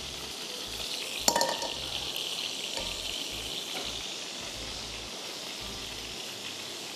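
Hot oil sizzling steadily in a pan on the stove, with one sharp metal clink of a utensil or pan about a second in.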